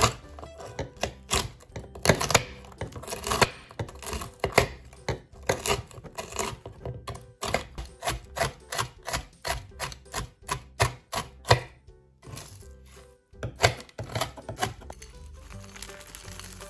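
Food-preparation knocks and clicks, quick and irregular at about three a second, over background music. They stop about twelve seconds in and come back as a few more knocks around fourteen seconds.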